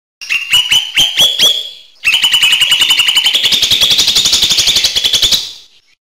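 Lesser green leafbird (cucak hijau mini) singing: about half a dozen sharp, quickly falling notes, then from about two seconds in a fast, even trill of rapidly repeated notes that lasts three and a half seconds and stops abruptly.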